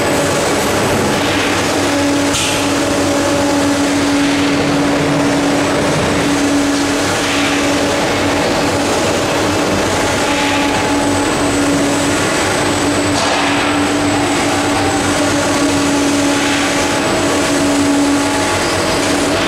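Steady drone of industrial machinery with a sustained hum and faint, brief swells every few seconds.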